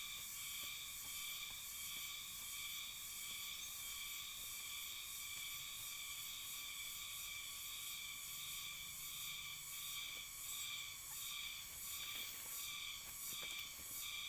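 Steady high-pitched insect buzzing, pulsing a little under twice a second.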